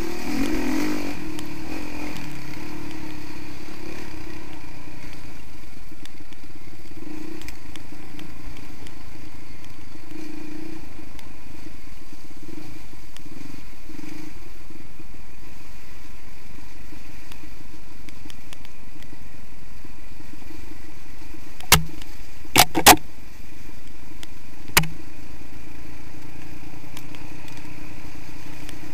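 Honda CRF 450R dirt bike's single-cylinder four-stroke engine running as it is ridden along the trail, its note rising and falling a little. A few sharp knocks come near the end.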